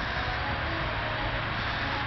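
Steady rumble and hiss of a train approaching along the tracks in the distance.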